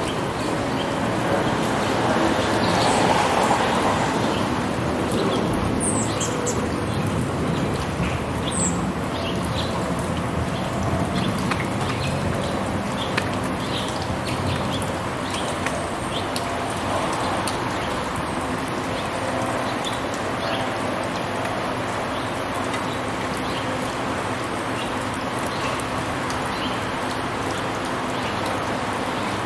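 Rain ambience on a city street: a steady wash of rain with scattered drips and taps, over a low steady hum. The sound swells louder for a couple of seconds near the start, and a few short high chirps come through.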